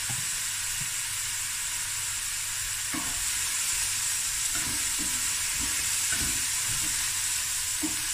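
Chopped onion sizzling steadily as it fries in oil in a stainless-steel pot. From about three seconds in, a wooden spoon scrapes and knocks against the pot as the onion is stirred.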